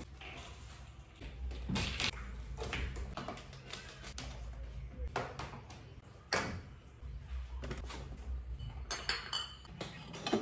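Light knocks and taps of household items being handled and set down on a shelf cart, with a brief clink of dishes near the end.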